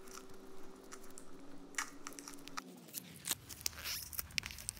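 Red tape mask crinkling and tearing as gloved fingers peel it off an etched steel plate: scattered small crackles and clicks.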